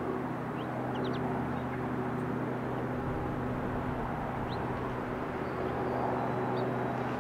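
Outdoor background ambience: a steady low rumble with a few short, high bird chirps scattered through it.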